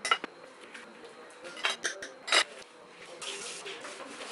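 Several sharp clinks of a small kitchen knife and banana slices against a glass plate during the first two and a half seconds, then a soft rustling near the end.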